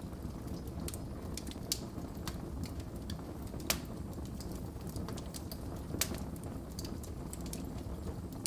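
Wood fire burning in a fireplace: a steady low rumble of flame with irregular sharp crackles and pops, the loudest about three and a half seconds in and again about six seconds in.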